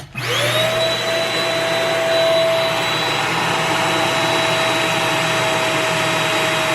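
Shark Rocket HV301 vacuum switched on at the lower of its two speed settings: the motor whines up to speed within about half a second, then runs steadily, a high whine over a rush of air.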